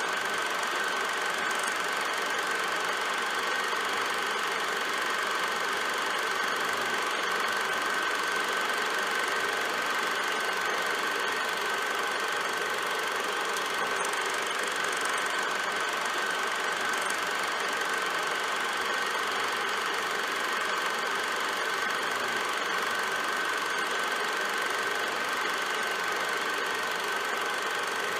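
Film projector running steadily, its mechanism making an even whirring noise with a steady high whine.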